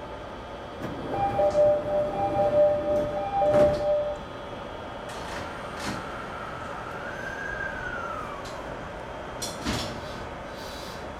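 In the cab of an E217 series electric train on the move: a two-note electronic alert sounds in broken stretches for about three seconds near the start, over the steady running noise. Later a whine rises and then falls in pitch.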